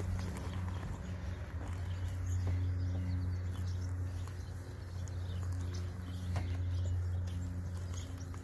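Sponge scrubbing over the wet, soapy paintwork of a car body panel, over a steady low hum.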